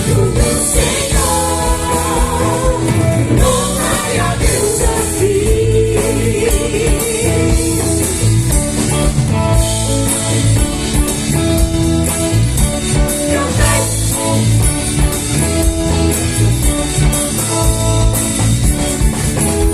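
Live gospel worship band playing an instrumental passage with electric guitar, bass and drum kit, with some singing heard in the first few seconds.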